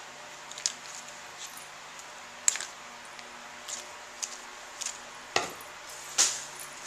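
Scissors snipping leaf stems: about seven short, sharp snips and clicks scattered irregularly, the two loudest and fullest a little past five and about six seconds in, over a faint steady hum.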